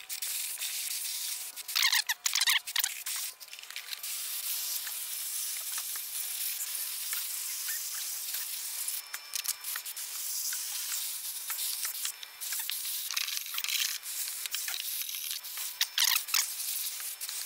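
Water dripping and trickling off a freshly hosed-down lawn mower deck, a steady faint spatter with small ticks. A few louder rustles and knocks, about two seconds in and again near the end, as hands handle the wet deck.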